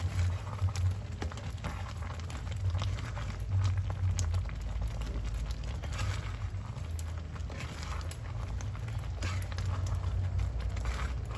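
Thick tamarind-and-sugar mixture bubbling in a pan as it is stirred and folded with a wooden spatula, giving scattered soft clicks, pops and scrapes over a steady low hum.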